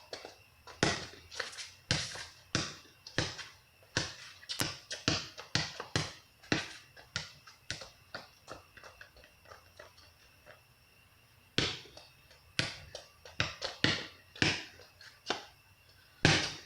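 Plastic fidget cube being clicked and fiddled with: irregular sharp clicks, a couple a second, with a pause of a few seconds near the middle.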